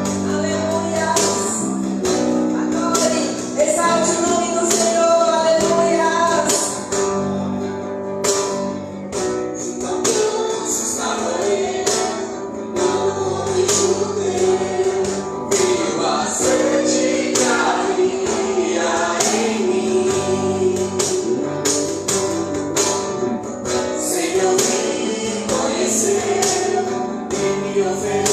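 Live gospel worship band playing: sustained chords and guitar under a singing voice, with a steady beat of percussion hits.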